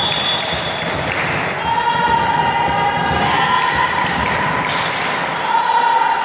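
A group of voices chanting a sung cheer, with a few thuds of a volleyball striking the hall floor.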